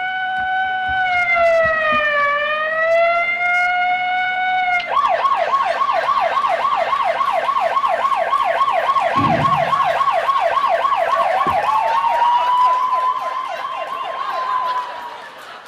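Police siren sound effect: a slow wail that dips and rises again, switching about five seconds in to a fast yelp of about five sweeps a second. Near the end a second tone rises and holds, and the siren cuts off just before the end. A dull thump comes about nine seconds in.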